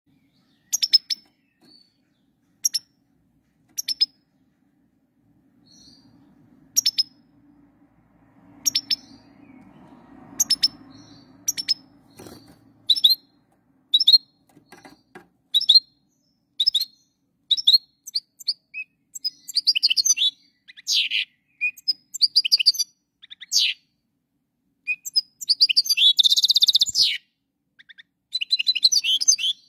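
Caged European goldfinch calling: single short high chirps a second or two apart at first, then from about halfway through quicker runs of twittering song notes, with one dense burst of song near the end.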